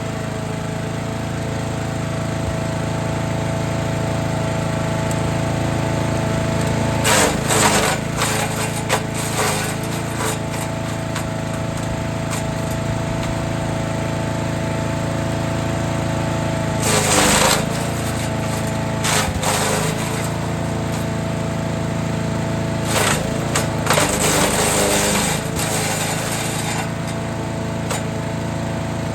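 Forest Master FM8DD wood chipper running at a steady drone, with louder rattling bursts as branches are fed in and chipped: about a quarter of the way in, twice just past halfway, and again for a few seconds about three quarters through.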